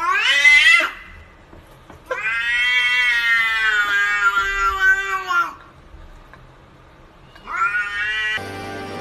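Domestic cat making three long, drawn-out meowing calls: a short rising one at the start, a long one of about three seconds in the middle, and another short rising one near the end.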